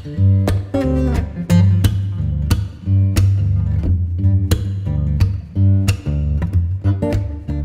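Background music led by plucked guitar over a bass line, with notes picked in a steady rhythm of about two a second.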